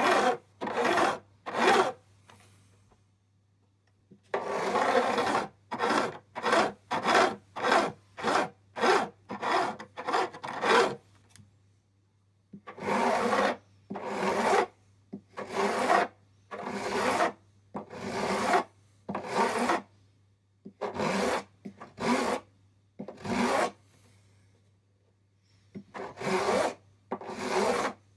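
A fret-bevelling file rasping along the edge of a guitar fretboard, cutting a light angle on the ends of stainless steel frets. The strokes come in runs, about two a second at the quickest, broken by short pauses.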